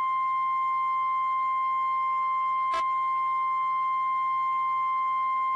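NOAA Weather Radio 1050 Hz warning alarm tone: one steady, high-pitched beep that signals a warning announcement is about to follow. A brief click sounds about three seconds in.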